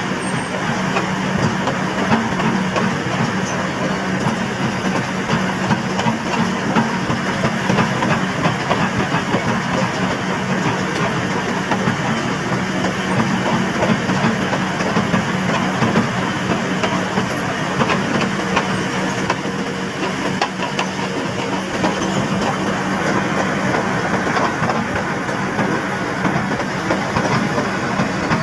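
Heavy diesel construction machinery running steadily: a constant engine hum with a rough, rattling texture that holds at an even level.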